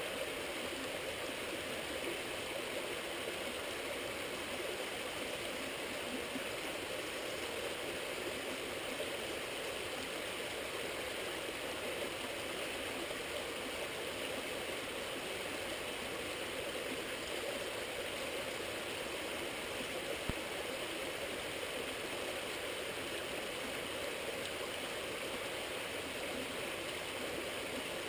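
Steady rushing of flowing water from a nearby stream or river, even and unbroken.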